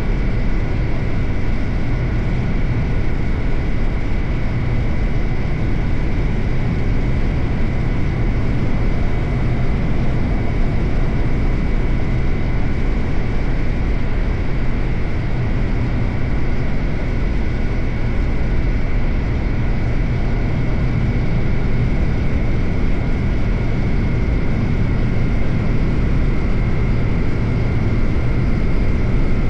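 Suzuki GSX-8R's 776 cc parallel-twin engine running at a steady speed while riding, with wind and road noise. The engine pitch holds level with no shifts or revving.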